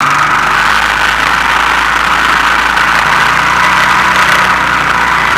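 Honda Foreman 450 ES quad's single-cylinder engine running steadily while it tows sleds over snow, heard close up from a camera on the quad's back, under a loud, steady rushing noise.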